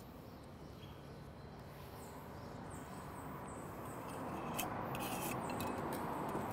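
Wire whisk stirring thick, freshly emulsified aioli in a glass bowl: a soft swishing that is faint at first and grows louder over the last few seconds, with a few light clicks.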